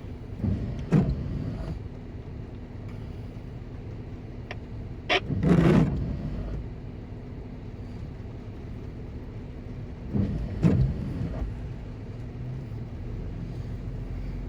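Toyota FJ Cruiser's V6 engine running at low speed with a steady low rumble and hum while crawling a muddy trail, broken by a few knocks, the loudest about five and a half seconds in.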